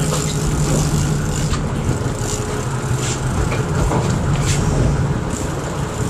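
A boat's engine idling steadily in neutral under wind and water noise, with short irregular rushes of noise.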